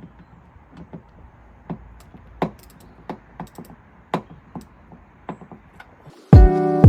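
Scattered light clicks and taps of a flat screwdriver working at a Vauxhall Corsa's rear wiper arm mechanism. Loud music with a strong beat cuts in suddenly about six seconds in.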